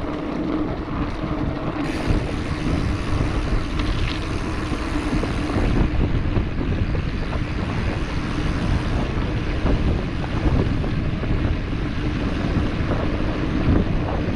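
Mountain bike riding over cobblestones: a continuous rattling rumble of the tyres on the stones and the shaking bike, with wind on the microphone.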